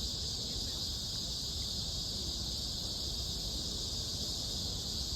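A steady, high insect chorus, crickets or cicadas, running without a break over low background rumble.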